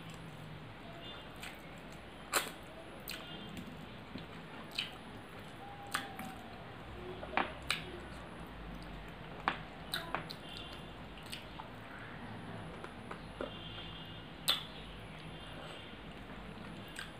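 Close-miked eating sounds of rice and curry eaten by hand: wet chewing and lip-smacking, with scattered sharp clicks.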